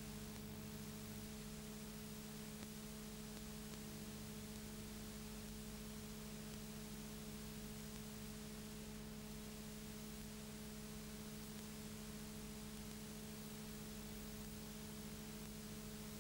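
Steady electrical hum with a faint high whistle over hiss, unchanging throughout, with no other sound.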